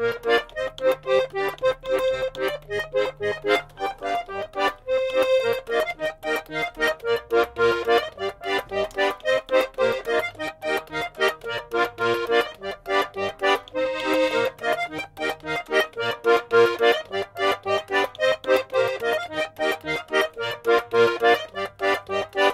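Polka music with a steady beat.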